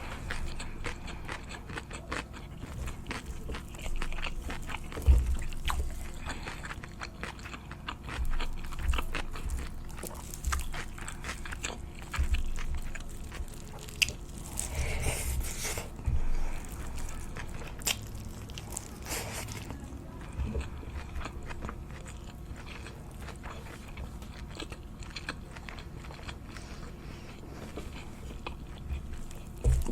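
Close-miked eating: biting into and chewing crunchy food, with crisp crackling crunches. The crunches are densest and loudest in the first two-thirds, and the chewing is softer after that.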